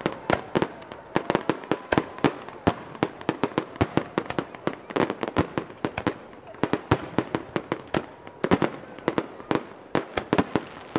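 Aerial fireworks bursting in a rapid, irregular run of sharp bangs, several a second, easing for a moment about six seconds in.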